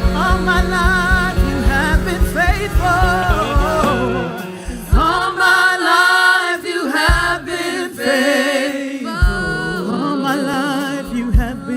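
Live church worship music: voices sing long notes with a wavering pitch over a band. A steady drumbeat drops out about four seconds in, leaving the voices over occasional low hits.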